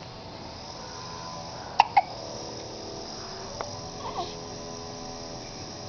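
Newborn baby hiccuping: two sharp hiccups close together about two seconds in, then a few fainter ones around four seconds in.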